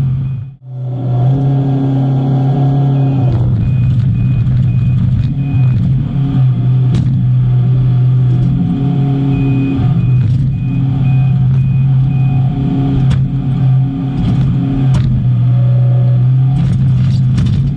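Cat 312CL excavator's diesel engine running steadily under load. A reversing alarm beeps evenly in two stretches, and a few sharp knocks of debris come through.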